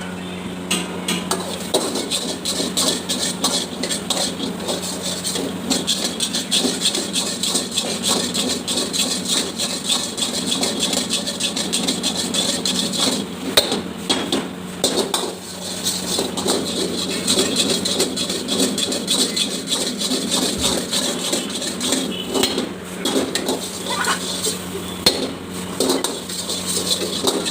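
Metal spatula clanking and scraping rapidly against a wok while stir-frying fried rice, with a steady low hum underneath.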